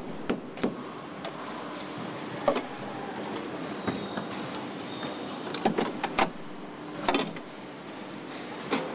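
Car assembly line noise: a steady machine hum with irregular sharp clicks and knocks as gloved hands press parts and hoses into place in an engine bay.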